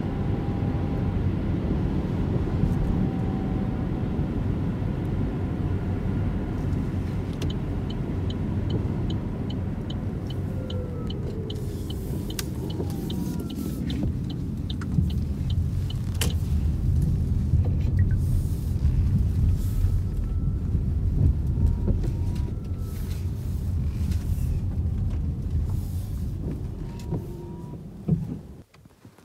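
Opel Mokka-e electric car driving, a steady low road and tyre rumble with faint gliding whines over it. A run of light, even ticks sounds for several seconds in the middle, and the rumble drops away near the end.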